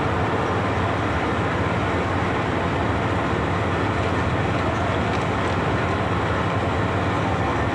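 Ferry boat's engine running steadily under way, a constant loud drone with a low hum.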